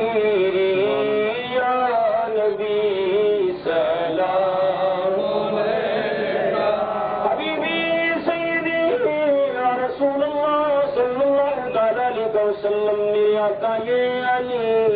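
Voices chanting a slow devotional salam to the Prophet, with long drawn-out notes that slide up and down in pitch.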